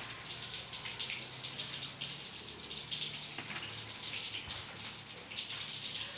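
Wet squelching and trickling as limes are squeezed by hand over raw mackerel scad in a plastic basin and the juice is rubbed into the fish, with a few small clicks.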